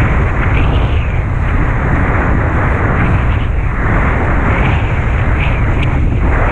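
Wind buffeting the camera microphone: a loud, deep rumble with a rushing hiss that swells and eases irregularly.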